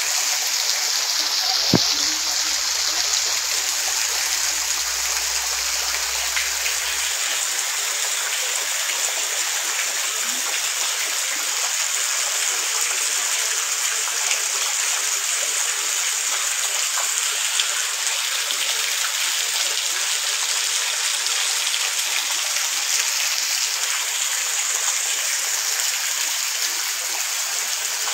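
Heavy rain pouring steadily onto waterlogged ground and splashing into an open bucket: a constant hiss of falling water. A single knock comes about two seconds in, followed by a low rumble for a few seconds.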